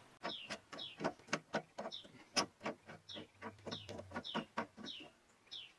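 Light, irregular metallic clicks and ticks from the aluminium gooseneck hitch parts being handled and adjusted by hand. A bird chirps throughout in short falling notes, about twice a second.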